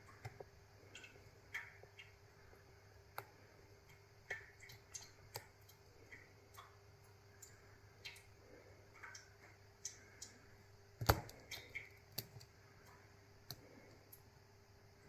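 Small, irregular metal clicks of a lock pick working the pins of a Goal D9 nine-pin Japanese lock, held under tension from a bar at the bottom of the keyway. There is one louder click about 11 seconds in.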